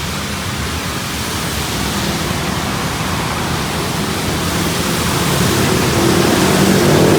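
Steady hiss of rain and wet-road traffic, with vehicle engines humming underneath; one vehicle grows louder near the end.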